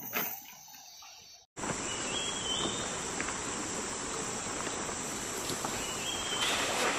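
Insects buzzing steadily at a high pitch over an even rushing noise. This starts abruptly about a second and a half in, after a quieter stretch with one soft knock.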